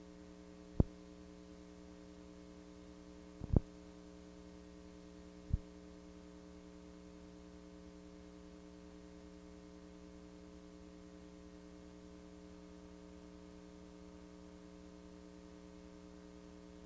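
Steady electrical hum made of several even tones, broken by three short clicks in the first six seconds.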